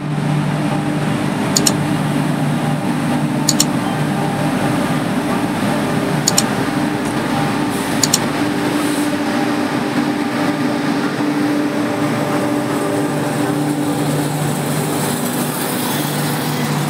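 Electric locomotive and its passenger coaches running slowly past: a steady hum and rumble, with four pairs of sharp metallic clicks in the first half.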